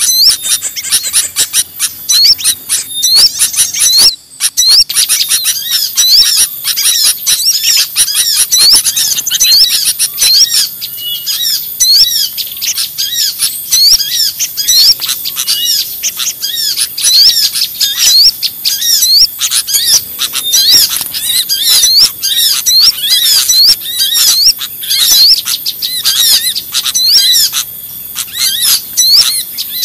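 Bird-lure (pikat) recording of a crowd of small birds chirping and calling at once: a loud, dense chatter of short high chirps, several a second, that briefly drops out about four seconds in.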